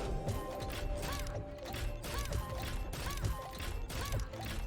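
Money Train 4 online slot game sounds: mechanical clunks and clatter of the reels spinning and landing, about two knocks a second, with short repeated chirping tones and the game's background music.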